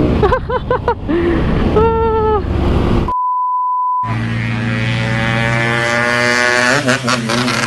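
Yamaha RX-King two-stroke motorcycle engine revving in quick blips, then cut by a one-second steady beep tone about three seconds in, after which the engine pulls with a slowly rising pitch.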